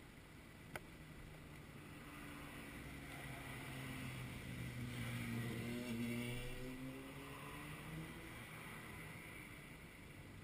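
A car engine grows louder as the car pulls up slowly beside the camera, with its pitch dipping slightly as it slows. The engine is loudest about five to six seconds in, then fades. A single sharp click comes just under a second in.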